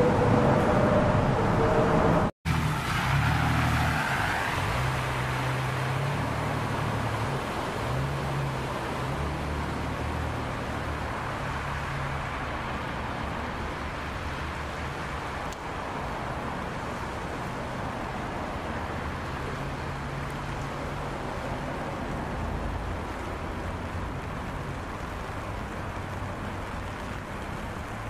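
SUV engine running as it drives through flooded road water, over a steady hiss of spray and rain. The engine is clearest in the first half and fades after that.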